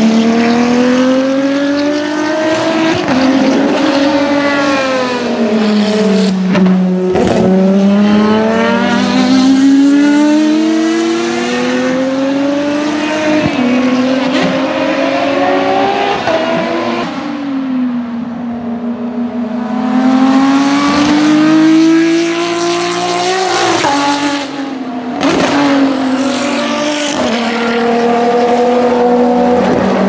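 Ferrari race car engines running at high revs, the pitch climbing and dropping again and again through gear changes as the cars pass. A couple of sharp cracks come about seven seconds in, and the sound eases off briefly past the halfway mark before building again.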